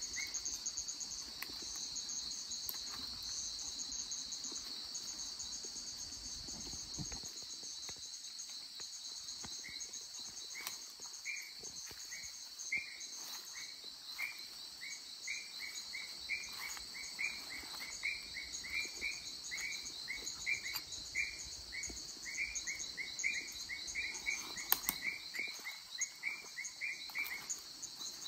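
Forest chorus of crickets and other insects: a steady high trill with a faster pulsing trill above it. From about ten seconds in, a run of short repeated chirps comes at a few per second, with a few faint clicks among them.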